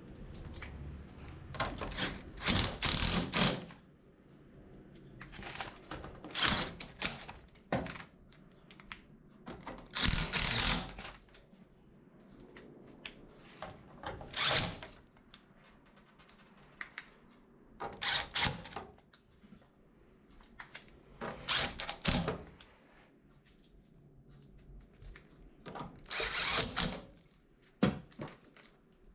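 Bursts of clattering, clicking and knocking from hands handling parts and tools, recurring every few seconds with quiet gaps in between.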